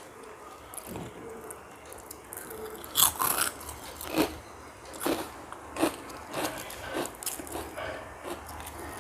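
A person biting and chewing potato chips: crisp crunches about once or twice a second, starting about three seconds in, the loudest crunch first.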